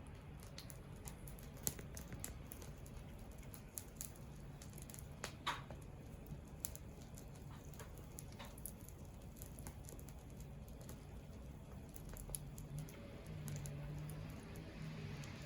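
Wood campfire crackling, with sharp pops and snaps at irregular intervals over a soft bed of burning noise.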